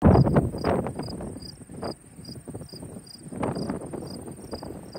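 Insects chirping in the grass, a short high chirp about three times a second over a steady high trill, with a gusty low rumble underneath that is loudest at the start.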